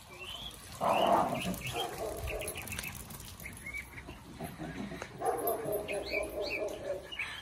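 Small dogs barking and yelping while chasing each other in play: a loud outburst about a second in and a longer, drawn-out one past the middle.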